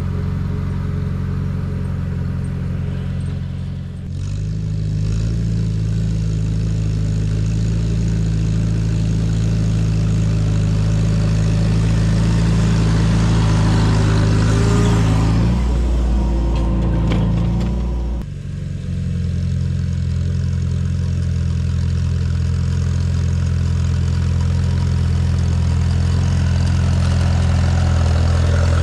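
Farmall tractor engine running steadily under load while pulling a plow through soil. The engine note dips briefly and shifts about four seconds in and again around eighteen seconds, wavering just before the second change.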